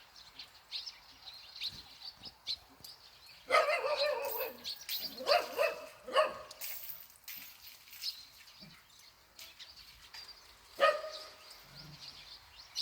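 A dog barking in a few bouts through the middle, with one more bark near the end. Small birds chirp faintly underneath.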